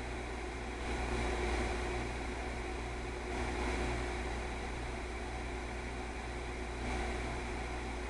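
Steady background hum and hiss, swelling slightly in level a few times.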